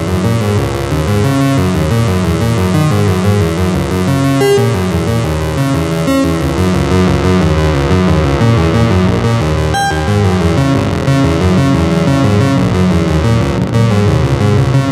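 Moog Mavis and Werkstatt-01 analog synthesizers playing deep ambient music: a steady, dense bed of shifting low and mid-register notes as the knobs are turned, with a few brief clicks through it.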